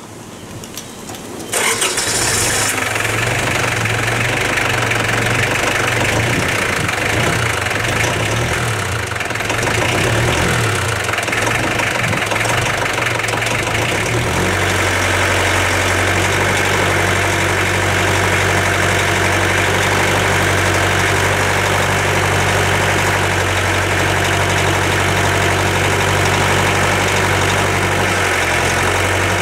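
Iseki TL2901 tractor's diesel engine starting about a second and a half in, then running with a wavering, uneven note. About halfway through it settles into a steady idle.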